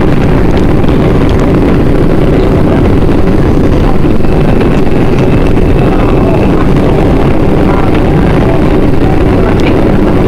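New York City subway 4 train running through a tunnel, heard from inside the car: a loud, steady rumble of wheels on rail, with a faint thin whine at times and a few light clicks.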